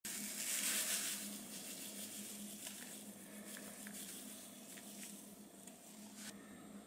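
Sugar grains sprinkled onto a baked custard: a soft hiss, loudest in the first second, easing into scattered light ticks, over a faint steady hum.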